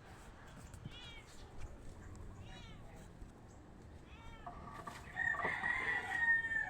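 Animal calls: several short, faint high chirping calls a second or two apart, then a longer, louder call held on one pitch near the end.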